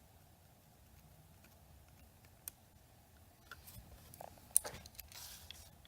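Faint scattered clicks and taps, growing more frequent in the second half, with a brief rustle near the end.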